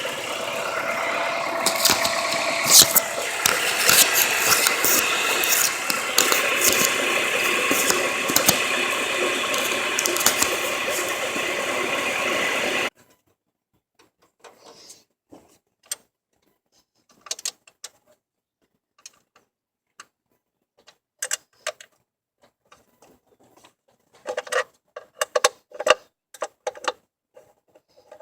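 Honda H22 inline-four engine running with repeated sharp knocks from a worn, failing rod bearing; the sound cuts off suddenly about 13 seconds in, leaving only scattered faint clicks and taps.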